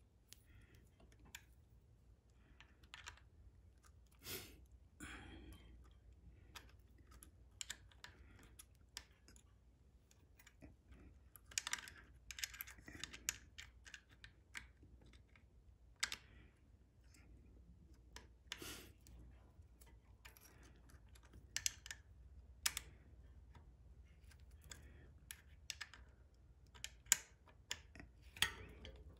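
Faint, irregular small clicks and ticks of hands working a steel inner brake cable loose from a mechanical disc brake caliper.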